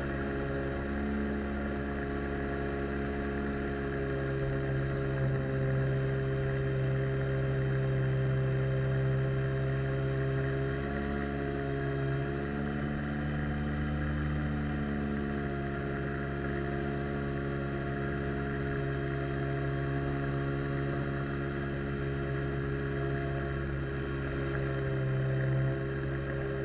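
Outboard jet motor on an inflatable boat running steadily under way. Its pitch rises slightly about halfway through, then settles back.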